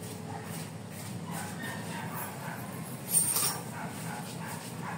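A dog making faint sounds, with a short, sharp clatter about three seconds in.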